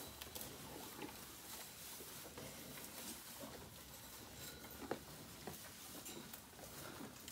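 Cows munching hay: faint crunching and rustling of hay and bedding, with one sharp click about five seconds in.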